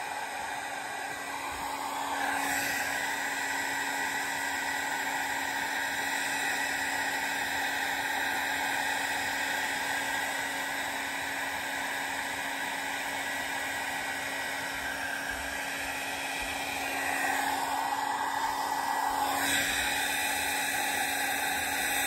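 Hand-held hair dryer blowing steadily, a constant rushing noise with a steady motor hum, its sound shifting a couple of seconds in and again near the end as it is moved.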